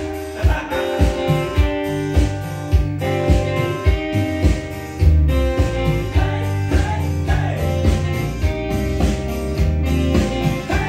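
Recorded rock music played from a vinyl record on a turntable through a hi-fi system: an instrumental passage with guitar, bass and a steady drum beat.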